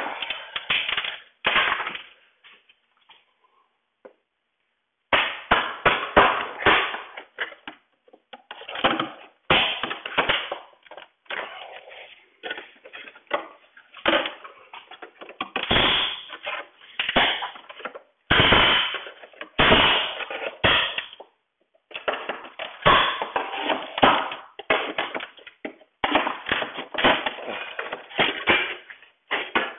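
Painted wooden window trim being pried off with a flat bar and pulled away by hand: irregular bursts of cracking, creaking and knocking wood with short pauses, as the nails holding it let go.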